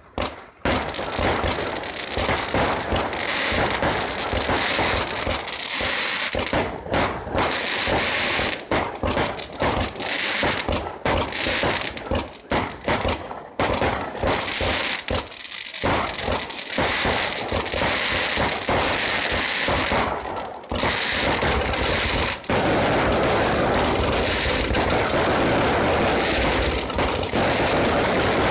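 Fireworks going off in a dense, continuous barrage of rapid bangs and crackling, starting suddenly about half a second in.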